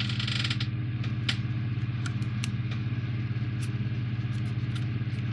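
Steady low hum in the background, with a few faint, light clicks from small plastic model parts being handled.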